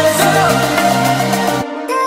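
Electronic dance music with a pulsing bass line; the bass cuts out briefly near the end.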